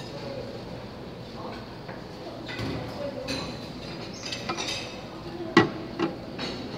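Dishes and serving utensils clinking, a series of short light clinks with one sharp, louder clink about two-thirds of the way through, over steady room noise.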